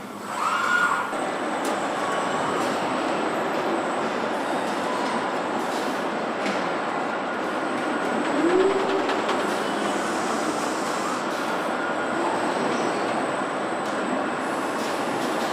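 Car production-line machinery running: a steady mechanical rumble and hiss, with short squeals about half a second in and again about eight seconds in.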